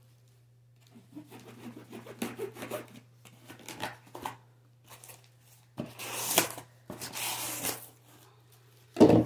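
Corrugated cardboard shipping box being torn open by hand: rustling and scratching at the flaps, then two long rips about six and seven seconds in, and a dull bump near the end.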